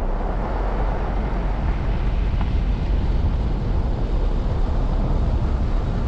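Steady road and engine noise of a moving car, heard from inside: a constant low rumble with a hiss over it.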